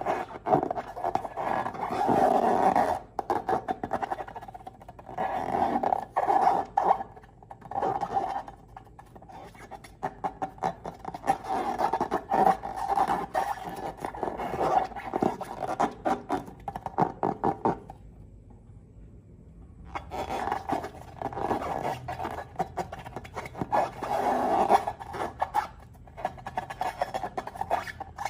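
Slime being squeezed and worked by hand, a dense sticky crackling and squelching in bursts, with a pause of about two seconds about two-thirds of the way through.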